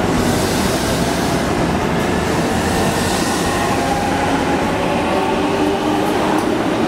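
Electric commuter train on the adjacent track moving off: a steady rumble of running noise with a faint motor whine that rises a little in pitch in the second half.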